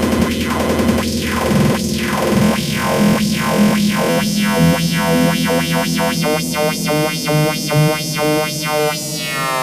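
Hard techno build-up with no kick drum: a synthesizer stab repeats faster and faster, then a falling pitch sweep comes in near the end.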